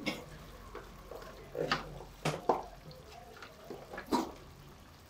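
Tomato masala frying gently in a pan with a faint sputter, broken by about five sharp taps and clicks from spoons being handled at the pan as turmeric goes in.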